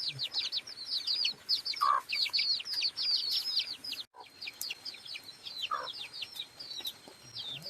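Chickens calling: a dense, continuous run of high, quick downward peeps, with a short lower call about two seconds in and again near six seconds. The sound drops out for an instant about four seconds in.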